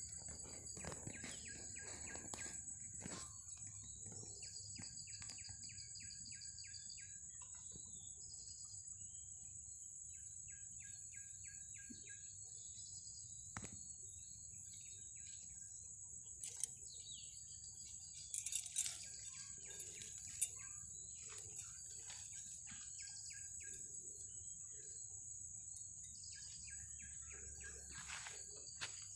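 Field ambience: insects trilling in a steady high-pitched drone, with birds calling in short phrases of rapid repeated notes several times. A few short sharp clicks stand out in the middle.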